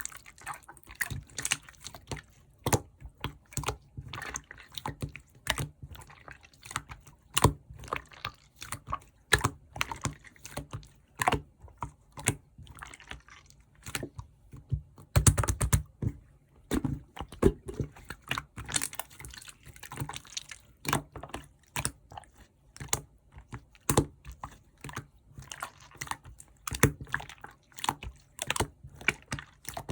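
Clear slime being squished and stretched by hand, giving irregular wet clicks and pops, several a second, with a denser run of squelching about halfway through.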